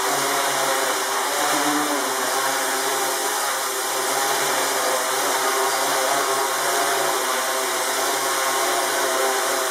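RC tricopter's three brushless electric motors and propellers running in flight, a steady buzzing drone whose pitch wavers slightly as the throttle is worked.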